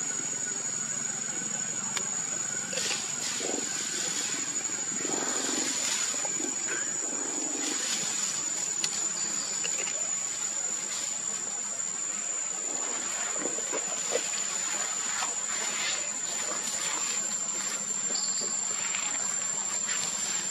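Steady outdoor ambience: an even, high-pitched insect drone over a constant background hiss, with scattered faint short rustles.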